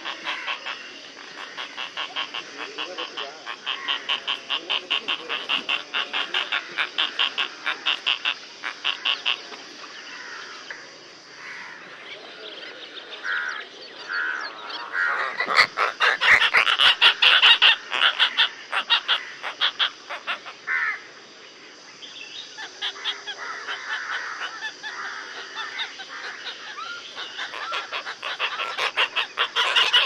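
A colony of Asian openbill storks calling: rapid, rattling pulsed calls several a second, with overlapping birds. The calling is loudest in a bout near the middle. It rides over a steady high hiss.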